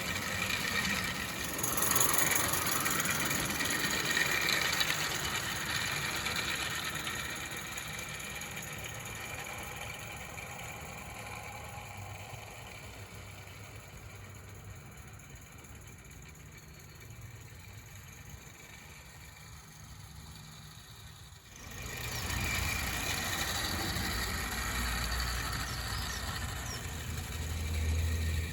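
Accucraft Cranmore Peckett 16mm-scale live steam model locomotive running, steam and exhaust noise growing gradually fainter, then an abrupt cut about three-quarters of the way through to a louder stretch of the same running noise.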